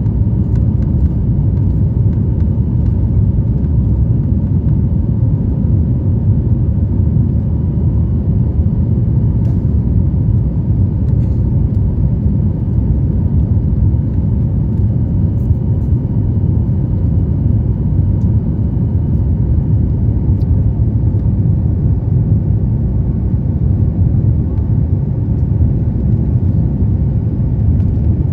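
Steady cabin noise of a Boeing 737 MAX 8 climbing after takeoff, heard from inside the cabin: its CFM LEAP-1B engines and the rush of air over the fuselage make a deep, even rumble, with a faint steady whine above it.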